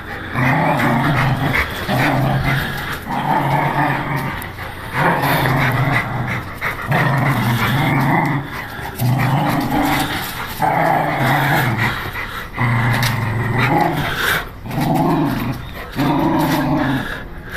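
Dog play-growling during a tug-of-war over a rubber chew toy: a long run of low growls, each about a second long, broken by short pauses for breath.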